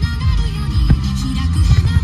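Music playing loudly, with a few sharp bangs among it, about a second in and near the end.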